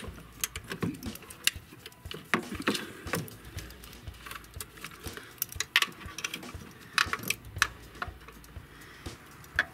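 Irregular metallic clicks and clinks of hand tools and a bolt being worked while the dipstick tube is bolted down, with a few sharper knocks about three, six and seven seconds in.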